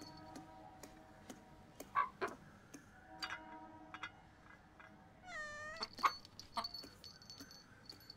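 A rooster's beak tapping on a steel food dish, a few sharp clicks spread out, with a short cat meow about five seconds in.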